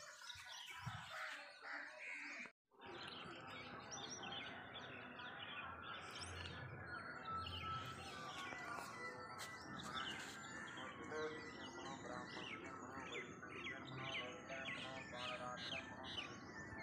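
Many small birds chirping and twittering, a dense, continuous chatter, with a brief dropout to silence about two and a half seconds in.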